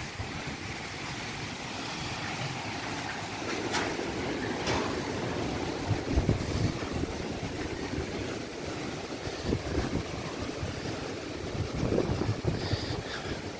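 Tropical-storm wind gusting, a steady rush with irregular rumbling gusts buffeting the microphone. The strongest gusts come about six seconds in and again near the end.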